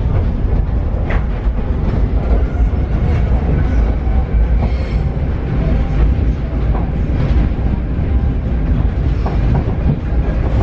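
Paris Metro train running through the tunnel: a loud, steady low rumble of wheels on track, with a sharp click about a second in.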